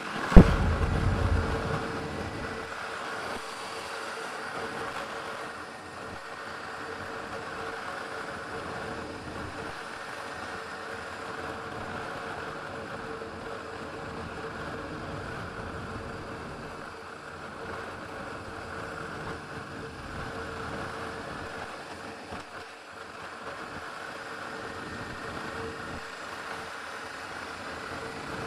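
Motorcycle engine running steadily while riding, with road and wind noise. A sharp loud knock comes just after the start, followed by a couple of seconds of heavier rumble.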